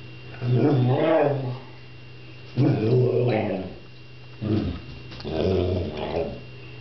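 Sheepdog 'talking': four drawn-out, growly whining vocalizations that waver up and down in pitch like mock speech, the third one short, begging for food.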